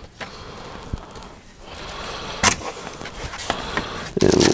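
Cardboard box and foam packing being handled: scattered light knocks and a sharp tap about two and a half seconds in, then a louder rubbing, scraping noise starting near the end.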